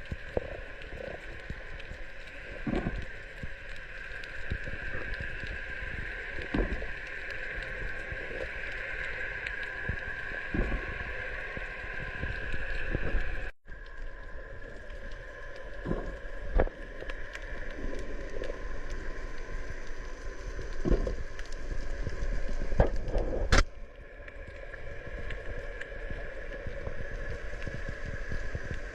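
Boat running at sea: a steady engine hum with water sloshing and splashing against the hull, and scattered knocks. The sound drops out for an instant about halfway through.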